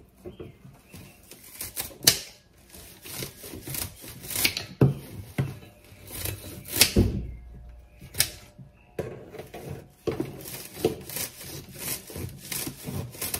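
Scissors snipping through a bunch of daisy stems, a string of sharp, irregular snips about a second apart.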